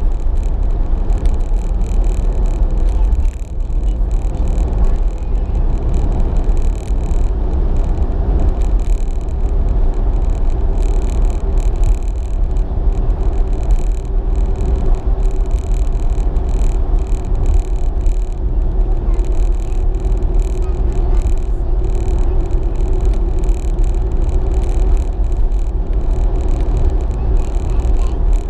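Road and engine noise inside a moving car's cabin: a steady low rumble, with a faint steady hum through most of it.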